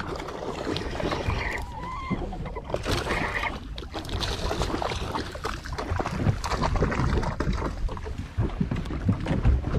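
Small fishing boat at sea: a steady low rumble of wind and water with irregular knocks and clatter on the hull.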